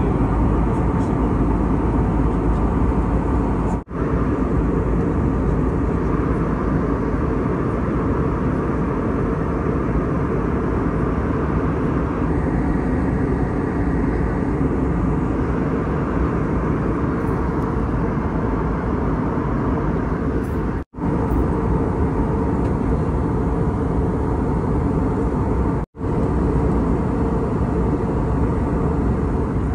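Steady low rumble and rush of a jet airliner's cabin in cruise flight, heard from a window seat. It breaks off for an instant three times.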